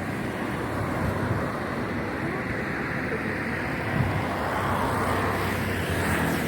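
Road traffic noise: a steady wash of passing vehicle engines and tyres, with one short louder knock about four seconds in.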